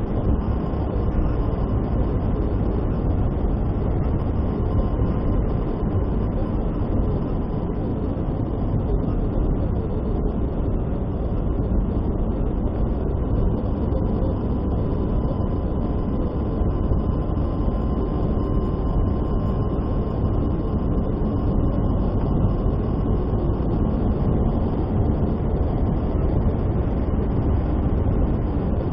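Steady road and engine noise of a car driving, heard from inside the cabin, with a faint steady whine.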